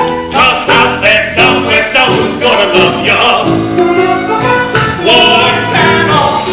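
Show-tune music with a steady beat and a voice singing over it: the closing bars of a musical-theatre number.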